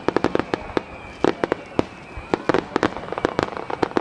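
Starmine fireworks barrage: many shells bursting in quick succession, making sharp, irregular bangs several times a second.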